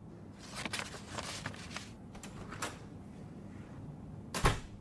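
Soft rustling and light clicks, then a door thudding shut near the end.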